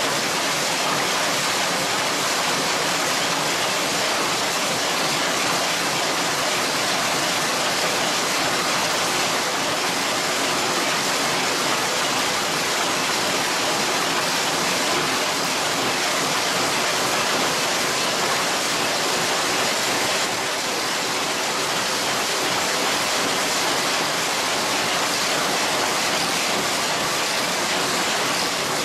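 Steady, dense noise of screw-blank cold-heading machines running, feeding wire and heading it into screw blanks. No single beat stands out.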